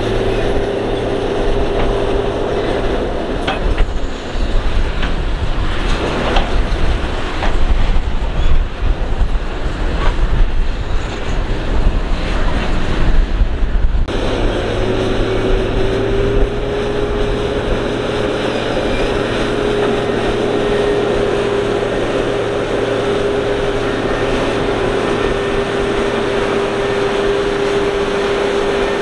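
Kobelco SK200 hydraulic excavator working: its diesel engine and hydraulic pump run with a steady whine. For a stretch of about ten seconds there are irregular knocks and clatter, which stop abruptly about halfway through, leaving steady running with the whine.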